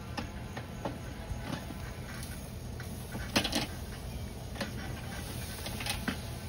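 Metal grill tongs clicking and scraping on a charcoal grill's grate as racks of ribs are turned, with the sharpest clacks about three and a half seconds in and again near the end, over steady low background noise.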